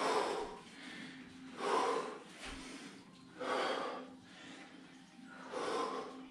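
Heavy breathing from someone doing Bulgarian split squats: a loud, hard exhale about every two seconds, four in all, in time with the reps.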